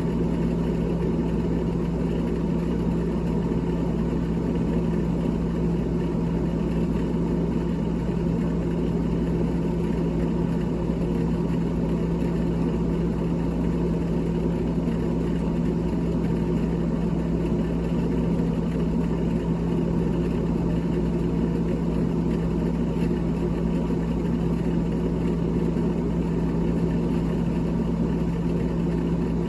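A small motor running steadily, a constant hum with a strong low tone that does not change.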